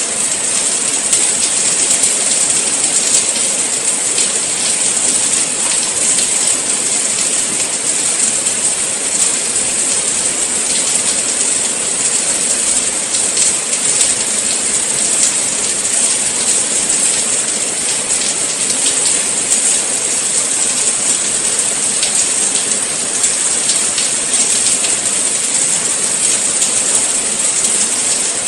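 Steady rain falling, an even hiss with many fine drop patters.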